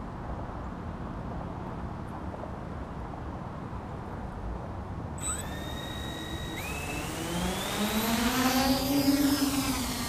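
Team Black Sheep Discovery quadcopter's electric motors spinning up about halfway in with a high rising whine. They then throttle up into a louder, deeper rising hum as the quad lifts off its pad, loudest near the end as it climbs away.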